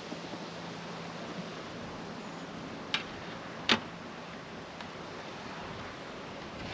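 Two sharp knocks about three-quarters of a second apart, the second louder, from the wooden hive parts being handled during an inspection, over a steady hiss.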